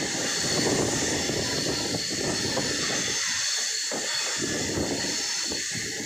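Durg–Nautanwa Express passenger coach running at speed, heard from beside the open coach: a steady rush of wheel-on-rail rumble and wind noise.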